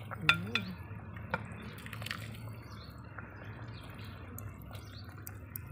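A serving spoon scooping thin chile pasilla sauce from a clay cazuela and pouring it onto a plate, with liquid dripping and splashing. A few sharp clicks of the spoon against the pot and plate come in the first second and a half.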